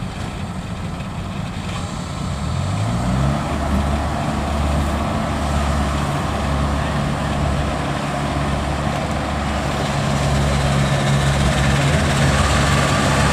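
Combine harvester's diesel engine revving up about two to three seconds in, then running hard and steady under load as the harvester, stuck in mud, is pulled out. The engine gets a little louder near the end.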